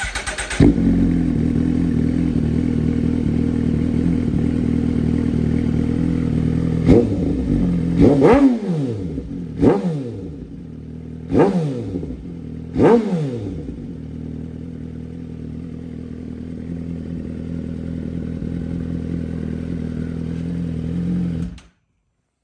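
Suzuki GSX-R1000R inline-four through an Arrow Pro Race slip-on muffler, warm and idling, with several quick throttle blips in the middle that rise sharply and fall back to idle. The engine sound cuts off suddenly shortly before the end.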